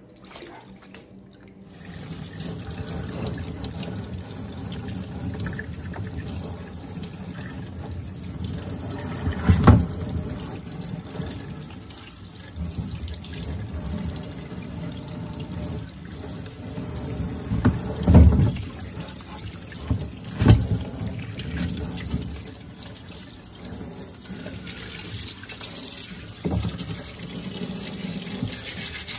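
Tap water running and splashing onto a cast-iron exhaust manifold in a utility sink, rinsing off the Evapo-Rust after its soak. The water starts about two seconds in. Several loud knocks cut through it as the manifold is handled in the sink.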